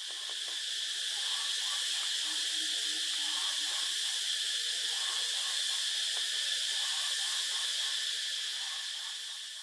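Steady high-pitched buzzing hiss of an insect chorus, as of cicadas. It swells over the first second and fades near the end.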